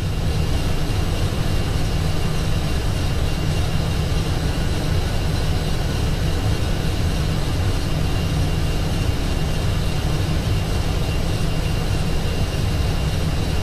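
Steady noise in an Airbus A320 cockpit standing still on the runway, from the engines idling and heavy rain on the windscreen. It is a deep, even rumble with a faint steady whine above it.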